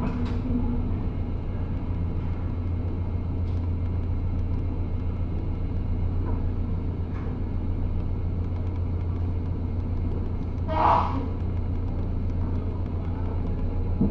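Low, steady rumble of a docked roll-on/roll-off ferry's engines. A short, loud burst of noise comes about eleven seconds in.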